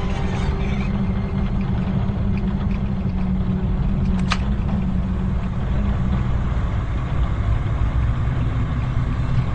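Low, steady rumbling drone of a suspense soundtrack, its held low tone dropping lower about six seconds in, with one sharp click about four seconds in.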